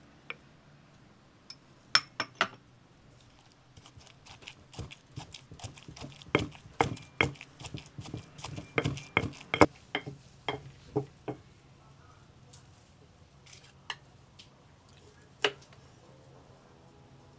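Stone pestle pounding chopped greens and spices in a stone mortar: a run of knocks, about three a second, for some seven seconds starting about four seconds in. A few sharp clicks come about two seconds in, and a couple of single knife taps on a wooden board come near the end.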